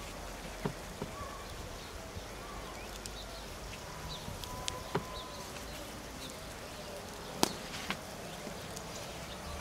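Soft taps and rustles of thin lavash flatbread being folded and pressed on a wooden board, with a few sharp clicks, the loudest about seven and a half seconds in. Faint bird chirps and a low outdoor hum underneath.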